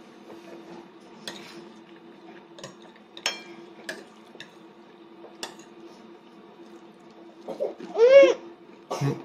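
A young child's single short, high-pitched vocal sound about eight seconds in, its pitch rising and then falling. Before it there are only a faint steady hum and a few small clicks and knocks at the table.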